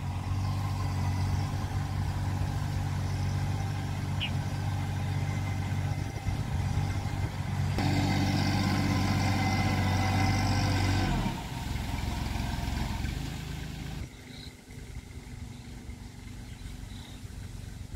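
Compact tractor engine running steadily as it pulls a rotavator between sugarcane rows. It grows louder about eight seconds in, then falls to a fainter, more distant hum after about fourteen seconds.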